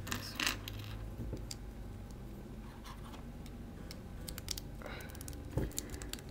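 Plastic Bionicle and LEGO Technic parts clicking and rattling as they are handled and pushed together, a scattering of small clicks over a low steady hum.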